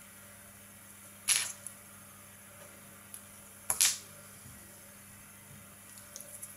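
Two sharp clicks about two and a half seconds apart, the second a quick double, from tools or materials being handled at a fly-tying bench, over a faint steady hum.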